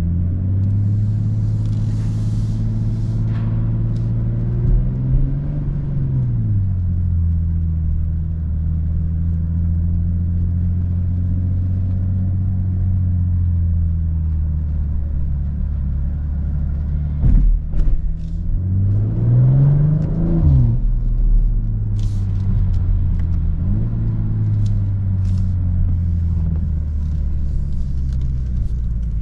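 BMW M240i xDrive's turbocharged 3.0-litre inline-six engine running at a steady cruise. About five seconds in, and again about two-thirds of the way through, the engine note rises and then drops sharply as the car speeds up and shifts to the next gear.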